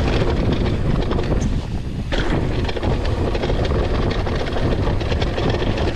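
Wind buffeting the microphone over the sound of a mountain bike's tyres rolling down a dirt singletrack, the bike rattling and clicking over small bumps, with a sharper knock about two seconds in.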